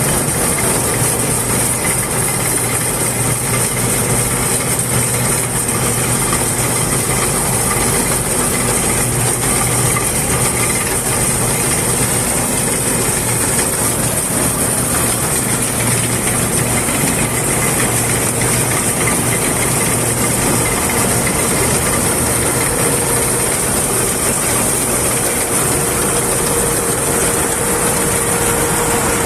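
Heavy farm machinery, most likely a combine harvester, running steadily under power, with a constant engine hum and a high mechanical hiss.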